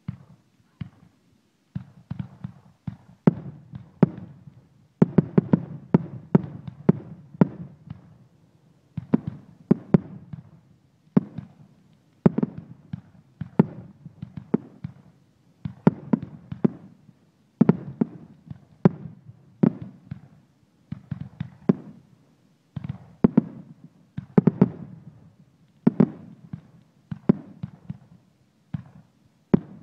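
Finale barrage of 1.3G consumer aerial firework shells, 3 inches and under, launching and bursting overhead. Sharp booms come several a second in clusters, with brief pauses between volleys.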